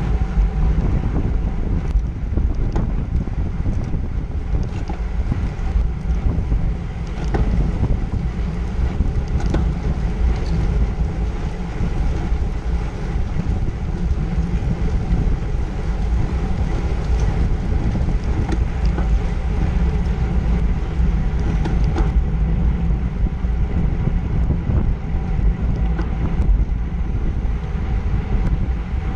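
Steady wind rumble on the microphone of a camera mounted on a road bike racing at about 20 mph, with a few faint clicks.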